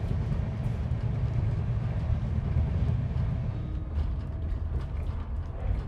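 Steady low rumble of a moving Indian Railways passenger coach, heard from inside the carriage.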